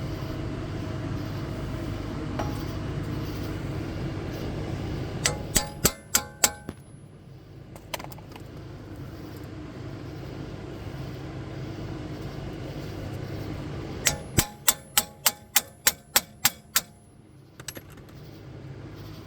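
Hammer striking the rusted front hub assembly of a 2005 Prius to drive it out, steel on steel. A quick run of about five ringing metallic blows comes about five seconds in, then one more blow, then near the end a faster run of about a dozen at roughly four a second. A steady low hum sits under the first few seconds.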